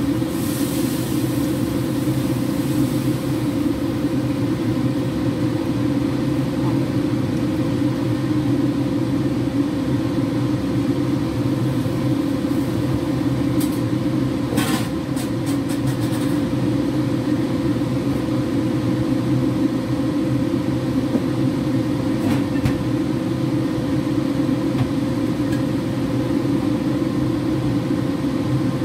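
Water poured from a kettle into a frying pan, splashing for about the first three seconds, over a steady low hum. A few light clicks come near the middle.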